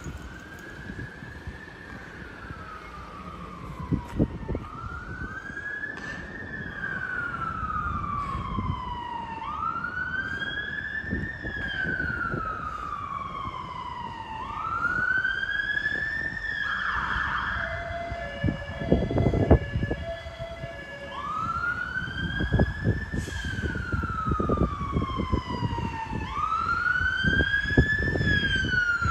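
London Fire Brigade fire engine sirens on the wail setting. The pitch rises quickly and falls slowly, about once every five seconds, and grows louder as the engines approach. A low rumble of traffic runs underneath.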